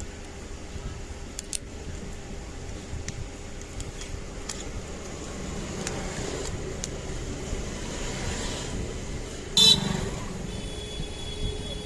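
Scattered light clicks over a steady low hum, then one short, loud tonal blast near the end, like a horn toot.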